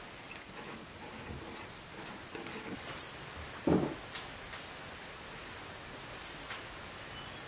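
Quiet dough-making sounds: water poured onto a bowl of flour, then dough pressed and rolled between the hands, with one soft thud about halfway through. A steady rain-like hiss sits underneath.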